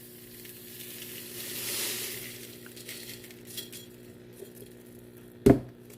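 Panko breadcrumbs poured from a bag into a bowl: a soft, hissing rush that swells and fades over the first few seconds, under a steady low hum. A sharp knock comes near the end.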